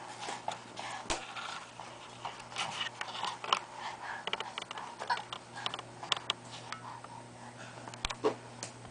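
Scattered soft taps, flaps and rustles of an EVA foam puzzle-mat piece being handled and bent by a baby, over a faint steady low hum.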